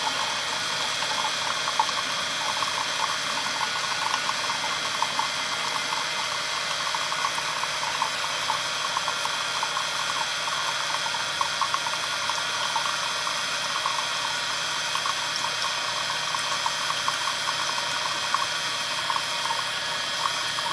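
Water running in a steady stream, with a continuous rush and many small splashes and gurgles.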